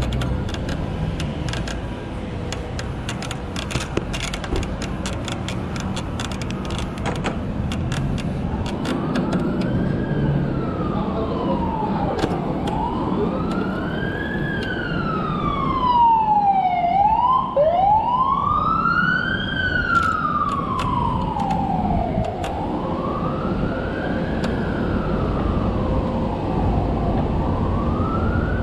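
An emergency vehicle's siren wailing, its pitch rising and falling in slow cycles of about four seconds, beginning about nine seconds in, over the wind and road noise of a moving bike.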